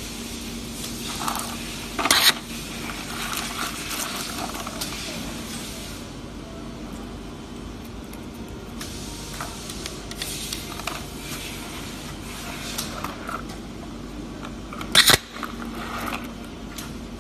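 Short-cycle stud welder firing threaded studs onto steel plate at 540 A with a 0.16 s weld cycle: two short, sharp crackling arc bursts, about two seconds in and again near the end, each double-peaked and over in a fraction of a second. A steady low hum and hiss runs underneath.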